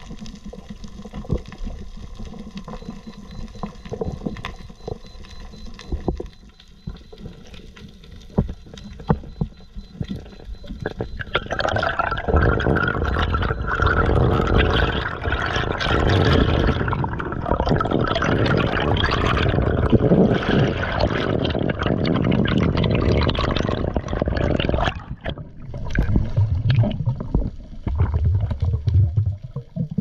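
Water noise picked up by an underwater camera: scattered sharp clicks at first, then from about eleven seconds in a loud sloshing, gurgling rush of water lasting some thirteen seconds, easing near the end into a few low thumps.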